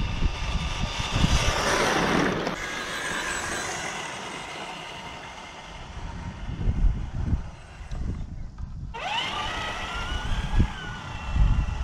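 Electric motor and gears of a radio-controlled scale pickup truck whining as it drives, with wind gusting on the microphone. About eight seconds in, the sound cuts out for a moment, then the whine rises as the truck speeds up.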